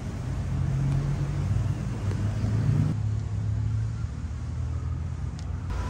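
Motor vehicle engine running with a steady low hum.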